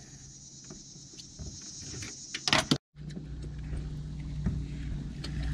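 Outboard motor running steadily at trolling speed, a low even hum with a steady tone. It comes in louder after a sudden cut about three seconds in, just after a short sharp clatter.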